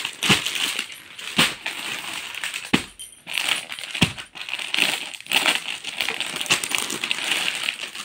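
Plastic packaging of folded suits crinkling and rustling as it is handled, with several knocks as the packets are moved and set down.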